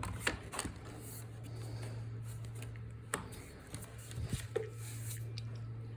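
Light handling noises of a Festool long-reach drywall sander being held and turned over: scattered soft clicks and rubs, a few sharper ticks near the start and about three seconds in, over a steady low hum.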